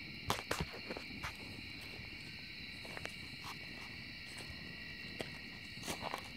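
Wood fire crackling in a metal fire pit, with sharp pops clustered in the first second and again near the end, over a steady high chorus of crickets.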